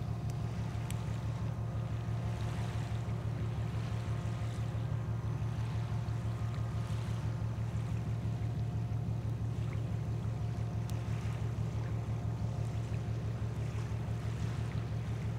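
Boat engine running: a steady low drone with a fast, even pulse and a faint hum above it.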